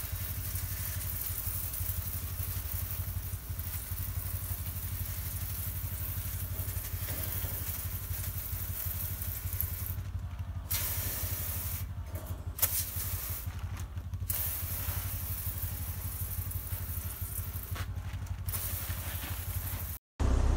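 Liquid sprayer hissing as a dust-repellent coating is sprayed onto a poultry-house exhaust fan and its wire guard, the spray stopping briefly four times and starting again, over a steady low mechanical hum. The sound drops out abruptly near the end.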